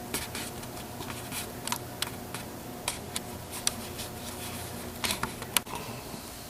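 Scattered light clicks and taps of hardware being handled, with a few sharper clicks about five seconds in, over a steady low hum.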